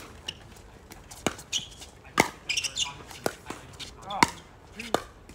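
Pickleball rally: paddles hitting the hard plastic ball in five sharp pops, about one a second.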